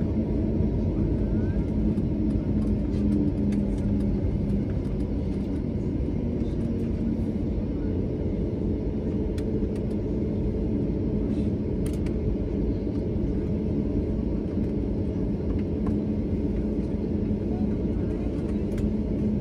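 Cabin noise of an Airbus A321neo with CFM LEAP-1A engines in the climb just after takeoff: a steady low engine drone with a few steady hum tones, heard inside the passenger cabin.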